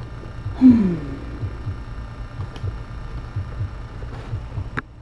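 A woman's short, low vocal sound, falling in pitch, about a second in. It sits over a steady low pulsing hum, with a few light clicks, the sharpest near the end.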